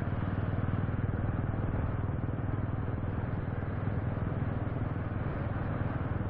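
Motorcycle cruising at about 60 to 65 km/h: steady wind rush on the microphone mixed with the engine running at an even speed.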